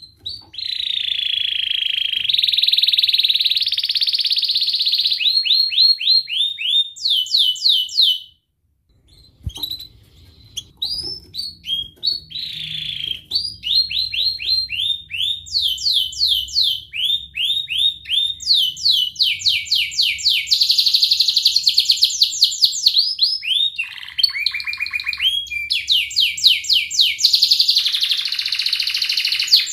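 Domestic canary singing a long song of high, rapid trills and rolling phrases, changing from one trill to the next every second or two, with a brief silent break about eight seconds in.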